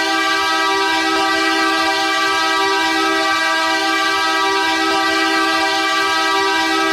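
Edmonton Oilers' 2003-era arena goal horn sounding one long, unbroken blast, a loud steady chord with a slight wavering in its low tones.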